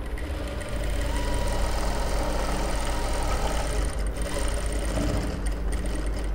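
JACK industrial single-needle lockstitch sewing machine stitching cloth. It picks up just after the start and runs steadily, with a thin high whine over its mechanical clatter.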